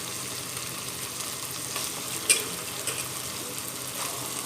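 Freshly added raw chicken sizzling in a pan of frying spice paste, with a spatula stirring and knocking against the pan. One sharp clack comes about two seconds in.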